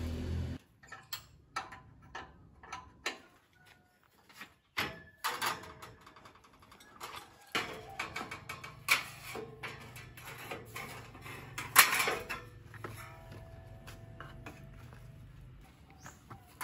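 Steel band-saw blade being handled and fitted around the iron wheels of a horizontal band sawmill: scattered metallic clanks, rattles and knocks with some thin ringing, the loudest knock about twelve seconds in. A faint low hum runs underneath from about halfway.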